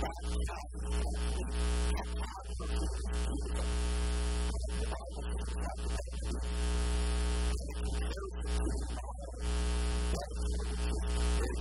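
Loud, steady electrical mains hum with a buzz of many overtones, over a faint, muffled man's voice that comes and goes beneath it.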